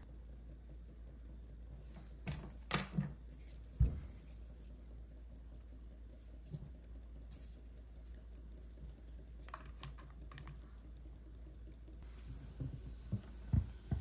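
Light clicks and taps of hard plastic being handled: a motorcycle battery's acid container and its plastic cap strip. The clicks come in a few small clusters, about two to four seconds in and again near the end, over a faint steady low hum.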